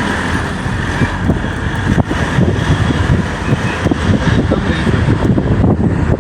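Steady noise of a moving vehicle, loud and continuous.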